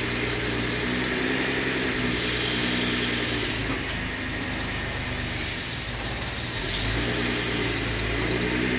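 Datsun 240Z's L24 inline-six engine running at a steady idle, dipping slightly in level about halfway through before settling back.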